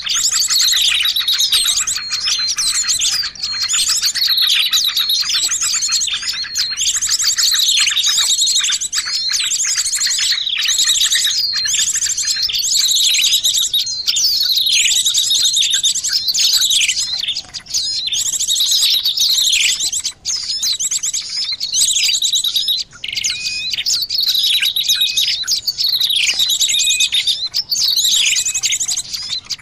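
Small songbirds calling non-stop in a dense, layered chorus: fast high trills and chirps with many quick downward-sweeping calls. It is a bird-lure recording used to attract small birds.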